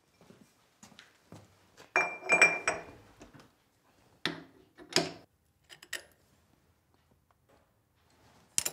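Metal-on-metal clinks and knocks as hand tools and parts are handled at a stopped metal lathe's chuck. There is a quick cluster of ringing clinks about two seconds in, then two sharper knocks around four and five seconds, with a few small ticks after.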